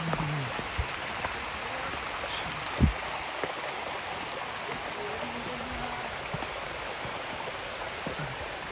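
A rocky forest stream flowing steadily over rock, with one short low thump about three seconds in.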